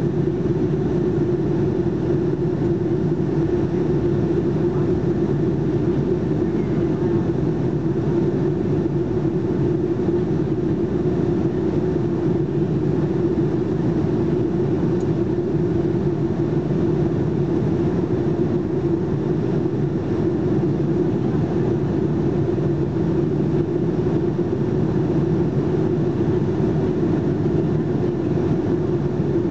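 Steady cabin noise of a Boeing 757-200 in flight, heard inside the cabin at a window seat: the even rush of air and engines, with a steady low hum.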